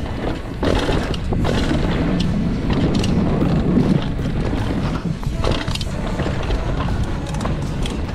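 Mountain bike riding fast down a dry dirt and rock trail: a steady rush of tyres on dirt and gravel and wind on the microphone, with many sharp knocks and rattles as the bike hits rocks and bumps.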